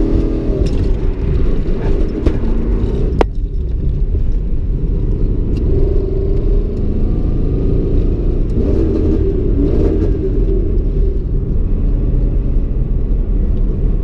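Toyota 1UZ V8 in a Nissan S13 drift car running, heard from inside the cabin, with one sharp crack about three seconds in. The engine is failing as its serpentine belt shreds, with horrible noises, and it won't run right.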